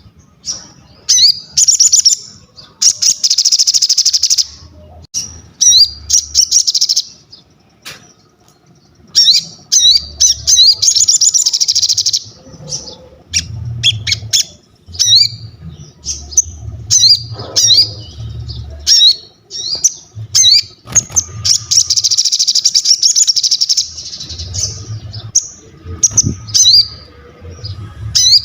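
Sogon songbird singing in full voice: quick high chirps running into dense, buzzy trills lasting a few seconds each, repeated again and again with short gaps.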